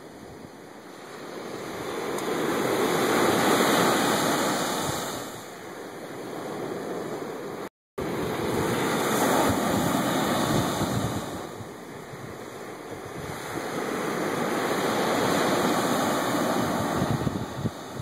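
Ocean surf breaking and washing up a sandy beach, the rush swelling and fading every several seconds. Wind buffets the microphone, and the sound cuts out for an instant about eight seconds in.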